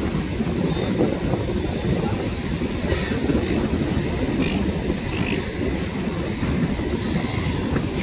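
Steady wind rumbling on the microphone over the wash of beach surf. A few faint, short, high calls of silver gulls come through around the middle.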